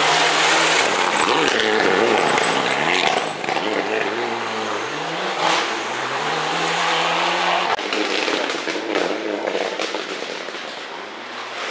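Rally car engine revving hard on a gravel stage, its pitch climbing and dropping again and again through the gear changes. It is loudest in the first half, cuts off sharply about eight seconds in, then picks up again and fades near the end.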